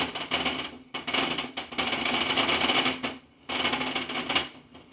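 Firework crackling: a dense run of rapid crackles that breaks off briefly twice and dies away near the end.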